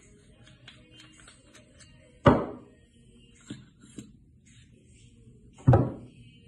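Steel parts of a cartridge-fired livestock stunner being dismantled and set down on a wooden table: two loud knocks about three and a half seconds apart, with a couple of lighter knocks and small metal clicks between them.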